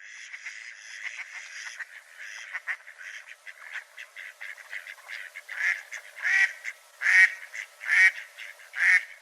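A flock of birds calling: a steady chatter of many overlapping calls, with five louder calls in the last few seconds.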